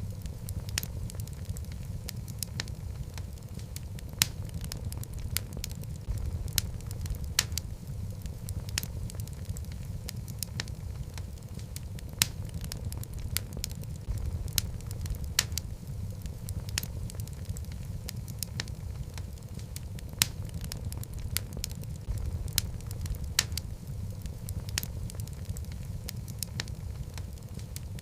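Wood fire of burning logs in a fireplace, crackling and popping irregularly over a steady low rumble of the flames.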